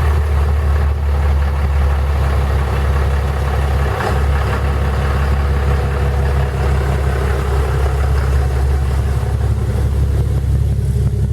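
Vehicle engine idling steadily: a loud, even low drone with no change in speed.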